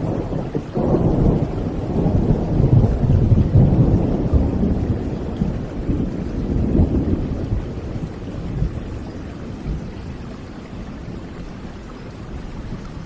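A long roll of thunder over steady rain. A low rumble swells about a second in, peaks over the next few seconds and slowly dies away, with the hiss of rainfall throughout.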